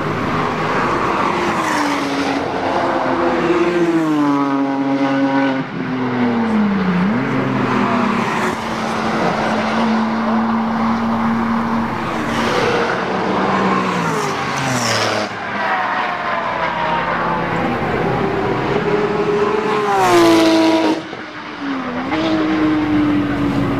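Sports cars passing at speed on a race circuit, one after another. Each engine note climbs and then drops sharply in pitch as the car goes by, three passes in all, the loudest near the end.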